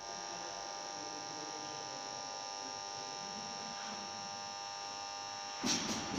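Steady electrical buzz with a thin high whine. About five and a half seconds in, a sudden loud rush of noise with a few sharp taps as the sprinter explodes out of the crouched start, his spikes striking the track.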